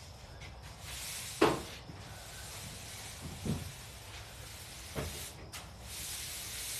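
A broom sweeping a garage floor, with bursts of scraping bristle hiss. Three knocks come at about one, three and a half and five seconds in; the first is the loudest.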